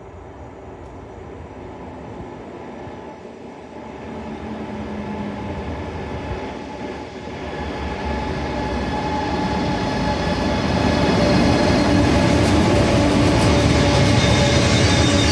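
A train running, its rumble and rail noise growing steadily louder for about ten seconds, then holding steady.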